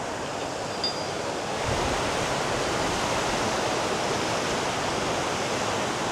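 River water rushing steadily, a little louder from about two seconds in.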